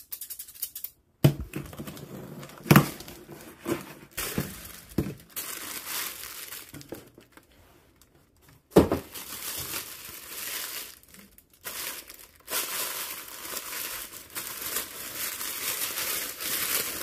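Scissors snipping through a cardboard box's packing tape, then kraft honeycomb paper wrap and tissue paper crinkling and rustling as they are pulled out of the box. Several sharp knocks stand out in the first nine seconds, and the crinkling grows dense and continuous for the last few seconds.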